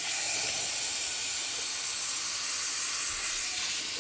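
Water running hard from a tap, a steady rushing hiss.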